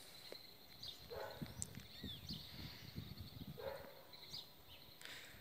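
Faint rural quiet with distant animal sounds: two short pitched animal calls, about a second in and again near the four-second mark, and scattered bird chirps.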